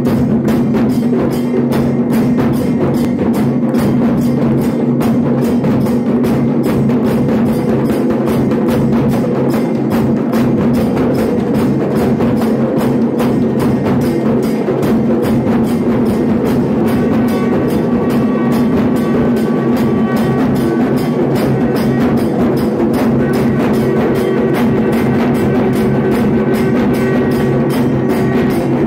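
Devotional aarti drumming: large barrel drums and a hand-held frame drum beaten in a fast, unbroken rhythm over a steady low drone. Higher ringing tones join about halfway through.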